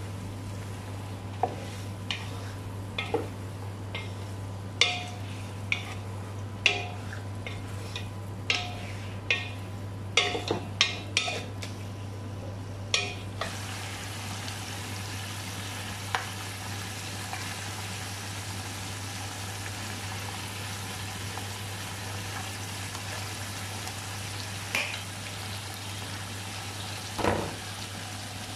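A wooden spatula knocks against the pot about a dozen times in the first half as whole chickens are turned in it. After that comes a steady sizzling hiss from the chickens frying, with a few more knocks, all over a low steady hum.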